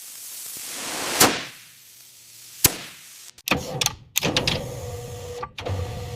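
A rising whoosh that ends in a sharp hit, then a single sharp click, then a quick run of mechanical clunks and knocks over a faint steady hum.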